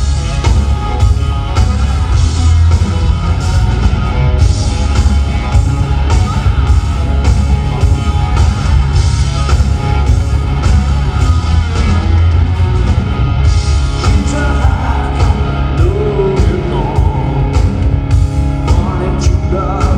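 A live rock band with electric guitars, bass, drums and keyboard playing loud through a venue PA, heard from among the audience, with sliding pitched lines over the band in the second half.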